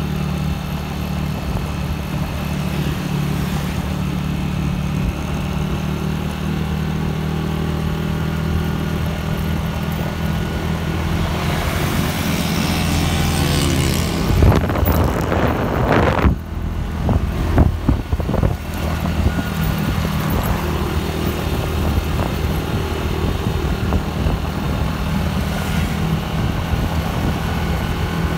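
Honda motorcycle engine running steadily at cruising speed, heard from the rider's seat with road and wind noise. About halfway through a rush of noise swells up, followed by a few seconds of sharp knocks and buffeting before the steady ride resumes.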